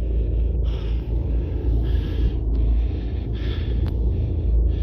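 A steady low rumble of wind buffeting a phone's microphone, with a rustling hiss that comes and goes in uneven stretches of about half a second to a second as someone moves through grass.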